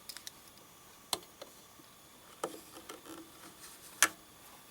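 A few sharp plastic clicks and light knocks as the cover of a Bernette Funlock 004D serger is handled and opened, with the loudest click about four seconds in.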